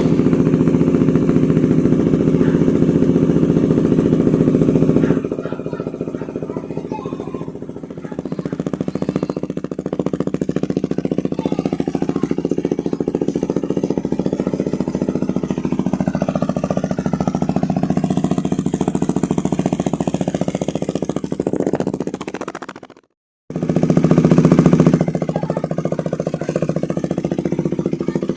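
KTM Duke 390's single-cylinder engine idling through a Remus full aftermarket exhaust. It runs louder for the first few seconds, then settles to a steady, slightly quieter idle. About 23 seconds in it cuts off abruptly for half a second and comes back louder for a moment before settling again.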